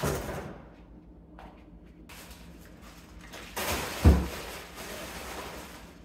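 Frozen food in plastic bags rustling as it is packed into a cardboard box, with a heavy thump about four seconds in as a package drops in.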